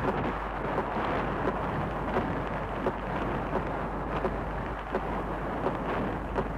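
Downhill skis running fast over hard, bumpy snow, with wind rushing past: a steady scraping noise broken by frequent irregular sharp knocks as the skis chatter over the bumps.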